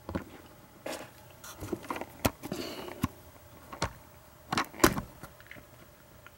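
Handling noise: a string of sharp clicks and knocks with some rustling as hard objects are handled close to the microphone, the loudest knock about five seconds in.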